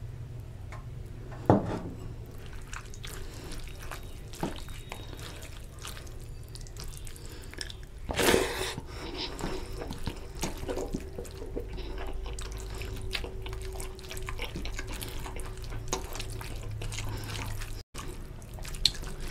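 Bare hand mixing and squeezing basmati rice with oily chicken curry gravy on a steel plate: wet squishing, dripping and small clicks. A sharp knock about a second and a half in, and a louder, noisier moment about eight seconds in.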